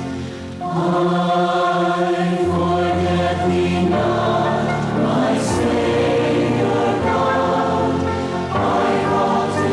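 A congregation singing a devotional song together in held, chant-like notes. There is a short break between lines about half a second in.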